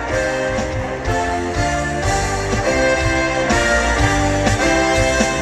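Instrumental passage of a pop song's backing music with guitar and a steady bass beat, between sung lines.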